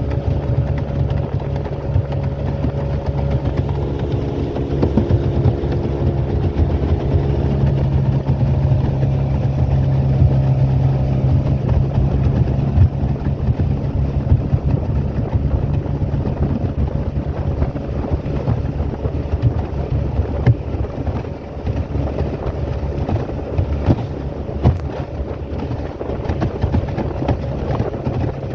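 Small boat's motor running steadily underway, a continuous low engine hum.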